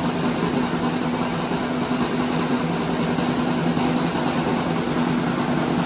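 A steady mechanical rumble with a low hum, like a running engine or train, played as a sound effect over the venue's speakers for the performance. It holds even throughout.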